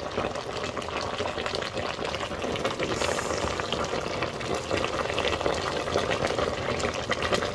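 A pot of seafood and vegetable stew bubbling steadily on the stove, a dense run of small pops and crackles from the simmering sauce.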